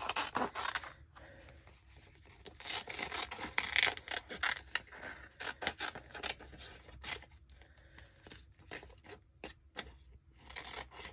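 Scissors cutting rub-on transfer elements out of a sheet with a plastic backing: irregular rasping snips and sheet rustle in short clusters, with brief pauses between them.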